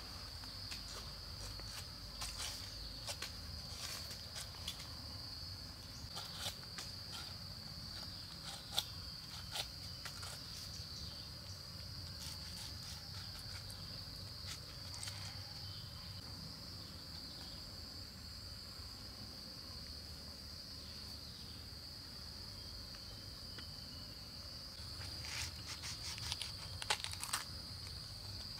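A steady high-pitched insect drone, with scattered crisp clicks and cuts as a machete blade slices the rind off a pineapple, several of them close together near the end.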